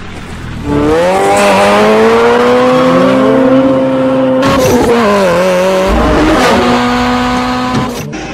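Car engine revving hard: its pitch climbs and then holds high, drops briefly about five seconds in as if through a gear change, then holds high again. There are abrupt breaks at the edit points.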